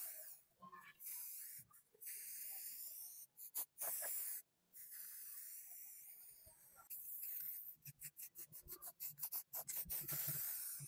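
Aerosol spray-paint can hissing as red paint is sprayed onto a meat grinder body: several sprays of one to two seconds each, broken by short pauses, then a quick run of short puffs about eight seconds in.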